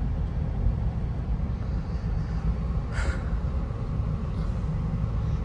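Steady low road and engine rumble heard from inside a moving Toyota Prado's cabin, with a brief short noise about three seconds in.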